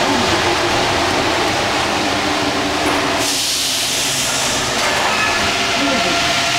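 Rubber-tyred Paris Métro Line 1 train running through a station, heard from inside the driver's cab as a steady rumble. About three seconds in, a burst of hiss lasts about a second and a half. Faint steady whining tones come in near the end.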